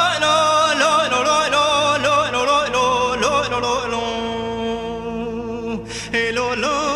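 Male Kurdish folk singing from a cassette recording: a melismatic, heavily ornamented vocal line over a steady low drone. About four seconds in he holds a long note that thins out, breaks off briefly near six seconds, then takes up the wavering ornaments again.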